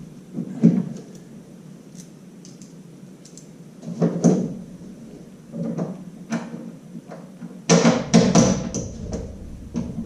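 Irregular clunks and rattles of bolts and a ball mount being test-fitted through freshly drilled holes in a jon boat's side, with a busier run of knocks about eight seconds in.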